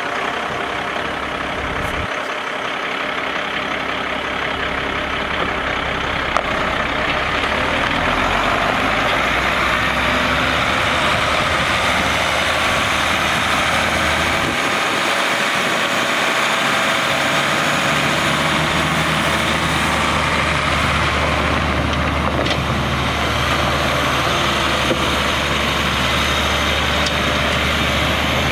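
Cummins 8.3-litre inline-six diesel in a 1994 Ford CF8000 dump truck idling just after being started, growing a little louder over the first several seconds and then running steadily.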